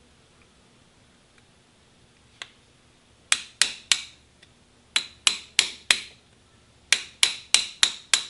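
Light hammer taps on metal, driving out the pad retaining pin of a BMW motorcycle's rear brake caliper; each tap rings briefly. Three taps come about three seconds in and four more at about five seconds, then a steady run of taps, about three a second, near the end.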